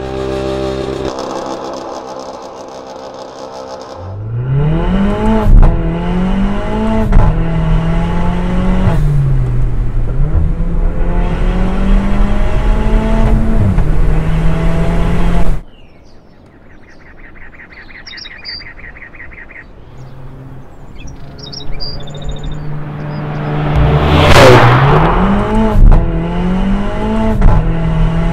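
Mercedes CLA 45 AMG's turbocharged four-cylinder through an Armytrix aftermarket exhaust, accelerating hard through several gears: the pitch climbs, drops at each upshift, and some shifts are marked by a sharp crack. After a sudden cut to a quieter stretch, the engine climbs through the gears again near the end, with a loud rushing burst partway through.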